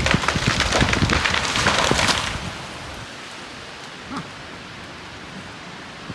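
A tree coming down in a windstorm: a dense run of cracking and snapping branches crashing through the canopy, which stops about two seconds in. A steady rush of wind through the trees follows, with one faint knock near the middle.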